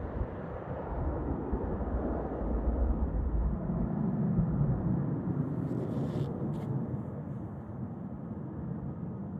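Jet airliner engines rumbling, swelling a little in the middle and easing off toward the end.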